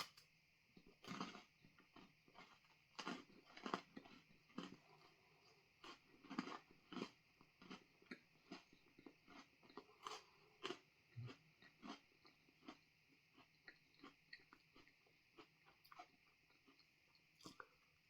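Crunching and chewing of a freeze-dried ice cream sandwich bar close to the microphone: a run of irregular crisp crunches that thin out to small ticks toward the end.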